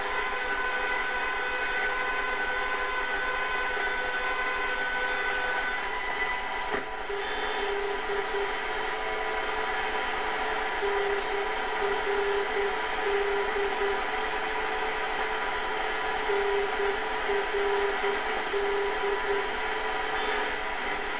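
Kenwood R-1000 communications receiver being tuned through the longwave beacon band: steady hiss and interference noise with faint heterodyne whistles, one high whistle dying away about six seconds in. From about eight seconds in, a low keyed tone switches on and off in dots and dashes, a Morse identifier like those sent by non-directional radio beacons.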